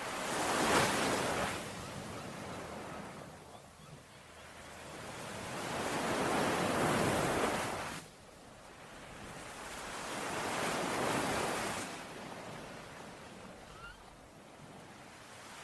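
Ocean waves washing onto a shore: three surges of surf, each swelling up and then falling away. The second one cuts off suddenly about eight seconds in.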